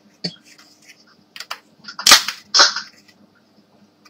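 Plastic latches of a Xerox toner cartridge's side cover snapping into place: a few sharp clicks, the loudest two a little past two seconds in.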